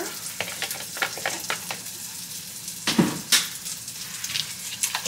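Food sizzling in a frying pan, a steady crackle, with small clicks and clinks of a spoon and bowl and two sharper knocks about three seconds in.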